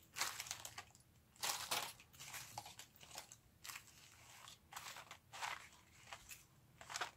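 Plastic-wrapped cardboard cards and packets of sewing notions crinkling and rustling in irregular bursts as they are picked up and handled.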